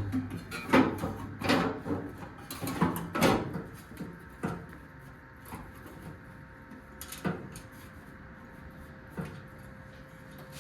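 Steel cowl panel clunking and rattling against the car's firewall as it is worked down into place. There is a quick run of knocks over the first few seconds, then a few single knocks a second or two apart.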